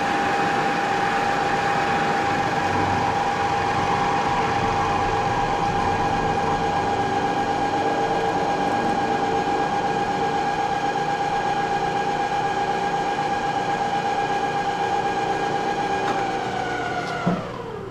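Moore jig borer spindle running at about 3,500 rpm with a steady whine. Near the end it is switched off with a click, and the whine falls in pitch as the spindle spins down.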